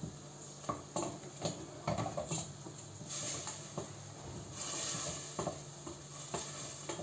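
A spoon stirring chickpeas, meat and onion in a steel pot of hot oil and tomato paste, scraping and knocking against the pot. The frying sizzle swells a couple of times.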